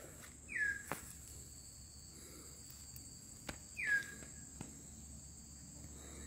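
A bird gives two loud whistles about three seconds apart, each dropping sharply in pitch and then holding briefly. Under them is a steady high drone of insects.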